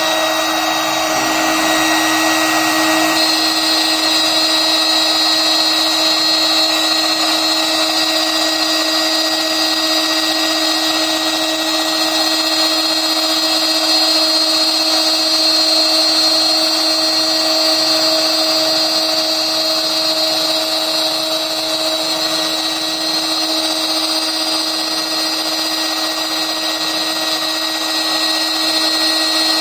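CNC router's HSD electrospindle running at speed while its end mill cuts a PVC sheet, giving a steady high whine over cutting hiss. It is roughing out the pockets of the part.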